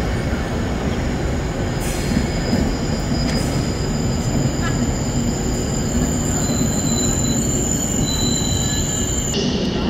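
PKP Intercity passenger coaches rolling along the platform with a steady rumble of steel wheels on rail. A high-pitched wheel squeal sets in about two seconds in and stops just before the end.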